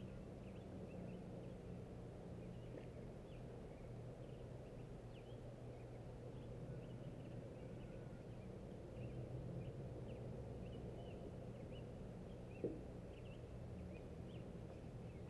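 Faint bird chirps, short and frequent, over a low steady hum, with one sharp click about four-fifths of the way through.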